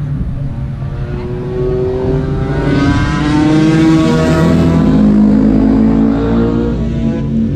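A group of sport motorcycles riding past through a track corner, several engines at once rising in pitch as they accelerate. The sound builds to its loudest around the middle, with more bikes still running near the end.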